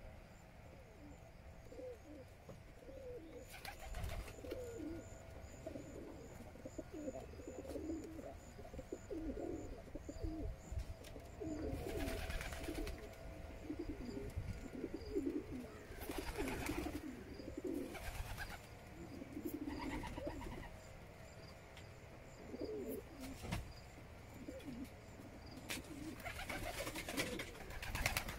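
Domestic pigeons cooing, a near-continuous run of low, wavering coos from several birds. A few short rushes of noise break in, the loudest near the end.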